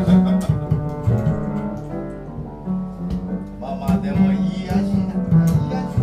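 Upright double bass played pizzicato, a line of deep plucked notes, with piano chords alongside in a live acoustic performance.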